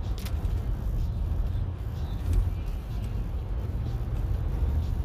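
Steady low rumble of a car on the move, engine and road noise heard from inside the cabin, with a brief click about a quarter second in.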